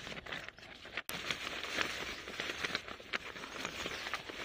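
Sheet of newspaper crinkling and rustling in the hands as it is folded around a plastic-bagged fruit, a dense run of small crackles.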